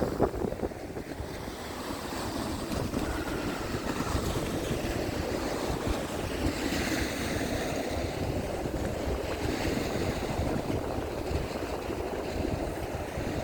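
Rough sea surf washing and breaking, with a louder rush of surf about six seconds in, under wind buffeting the microphone.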